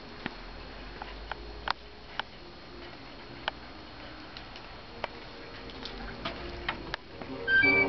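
Scattered sharp ticks and clicks, irregular and roughly one a second, over a faint steady hiss. Near the end, music with held, piano-like notes begins.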